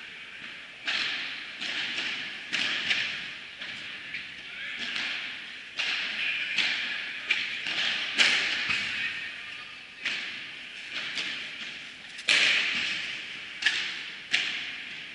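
Padel balls being struck with paddle rackets, sharp pops roughly one or two a second at an irregular pace, each echoing in a large indoor hall.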